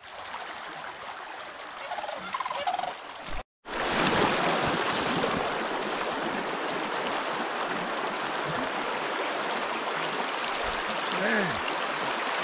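Steady rush of flowing stream water, louder after a brief dropout about three and a half seconds in. A few short calls are heard about two seconds in.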